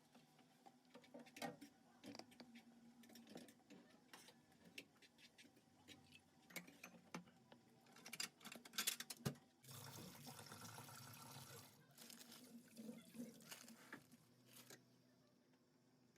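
Quiet kitchen handling sounds: scattered taps and clicks of utensils and dishes, a quick run of sharp clicks about nine seconds in, then a steady rushing noise of liquid for about two seconds.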